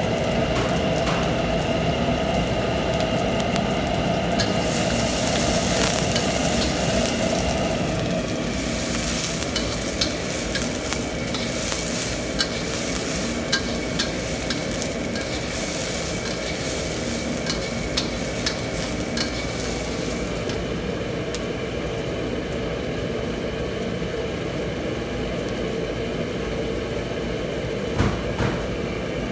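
Chopped onions sizzling in oil in a steel wok, stirred with a metal spatula that scrapes and clicks against the pan, over a steady drone from the gas wok burner and kitchen. The sizzle and clicking are loudest from about four seconds to twenty seconds in, then settle, and a single knock near the end as the spatula is set in the wok.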